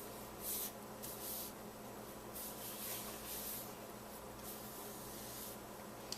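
Chalk ink pad swiped along the edges of paper cardstock, about five short, soft scratchy strokes.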